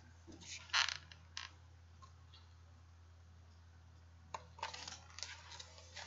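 Paper handling of a picture book held up and moved about: short rustles and scrapes of the pages a little under a second in, and again from about four seconds in, over a faint steady low hum.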